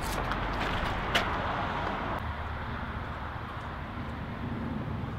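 Steady outdoor background of road traffic, a low even rumble, with a sharp click about a second in.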